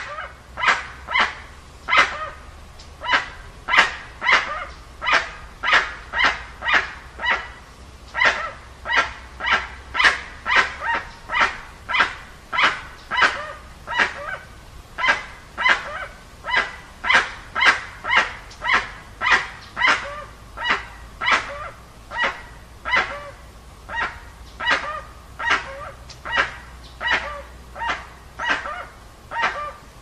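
Guan (jacu) calling: a long unbroken series of short, loud calls, about two a second.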